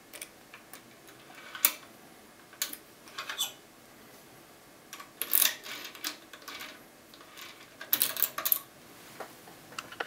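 Sharp metallic clicks and short scrapes of picking tools and a key being worked in and out of a Bricard Astral radial-pin lock cylinder, in scattered clusters.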